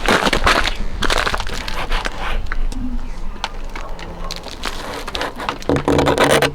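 Footsteps crunching through snow, a dense, uneven run of crunches.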